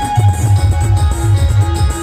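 A loud live band playing timli dance music, with a heavy pulsing bass beat and repeated keyboard melody notes.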